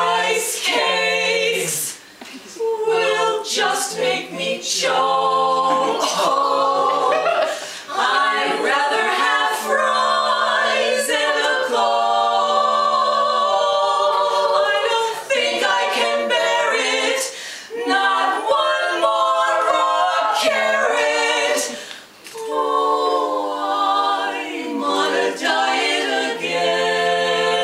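Women's barbershop quartet singing a cappella in four-part harmony, with a couple of brief breaths between phrases.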